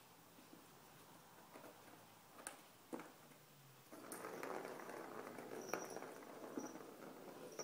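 Plastic ball rolling and clicking around the circular track of a cat's whirly ball toy as a cat bats at it: a few light clicks, then from about four seconds in a steady rolling rattle.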